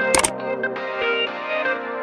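Background instrumental music with a steady run of notes, and one sharp click about a quarter of a second in.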